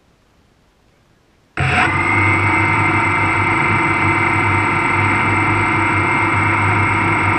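Drone's electric motors and propellers starting abruptly about a second and a half in, then running at a steady speed with a constant whine.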